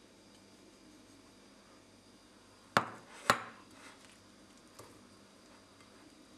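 Two sharp knocks on a glass mixing bowl about half a second apart, then a much fainter one, as powdered sugar is tipped into butter and cream cheese.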